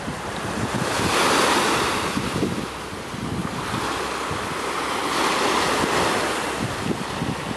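Small sea waves washing onto a sandy shore, with wind buffeting the microphone. The wash swells about a second in and again around five seconds.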